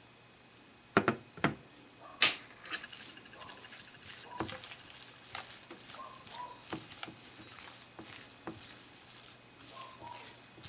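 A few sharp clinks on a glass mixing bowl, then a silicone spatula stirring and scraping thick chestnut cream (marron paste) against the glass in short strokes about every half second.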